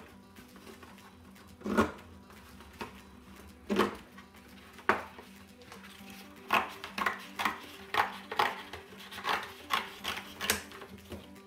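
Scissors cutting through thin cardboard. A few slow, separate snips are followed, from about halfway, by quicker snips at about two to three a second.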